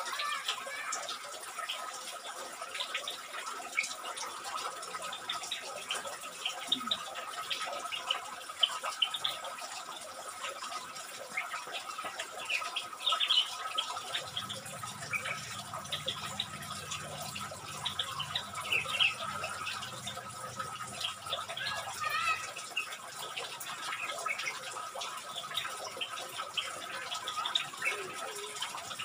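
Bulbuls in a small aviary chirping and calling, many short overlapping calls throughout, with a faint steady tone underneath. A low hum comes in about halfway through and stops about eight seconds later.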